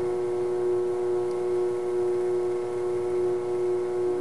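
A steady hum made of several constant tones, unchanging throughout.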